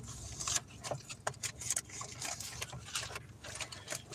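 Irregular small clicks and rustles of hands handling things close to the microphone.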